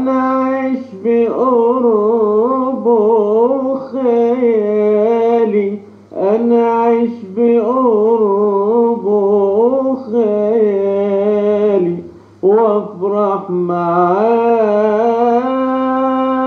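A solo male voice sings a slow, ornamented Arabic melody in long held notes and wavering melismatic runs, in phrases broken by short breaths, over a faint steady hum.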